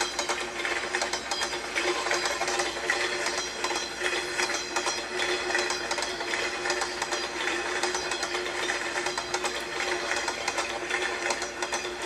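Train clickety-clack sound effect: a fast, continuous run of rattling clicks like wheels over rail joints, over a steady hum.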